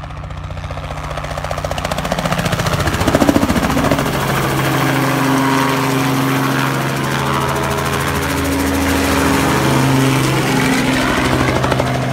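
Light crop-spraying helicopter flying low and close overhead: the rapid thudding of its rotor blades over a steady engine tone. It grows louder over the first few seconds, stays loud as it passes over, and begins to fade near the end.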